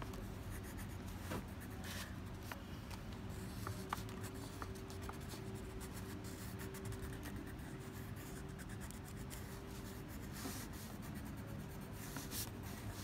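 Faint scratching of a black drawing tool making short strokes and dots on textured paper, over a steady low background hum.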